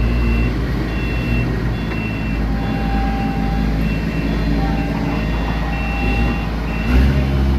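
An 18-inch two-roll rubber mill (hot mill) running: a steady low machine hum, with short high-pitched tones coming and going over it and a brief louder surge about seven seconds in.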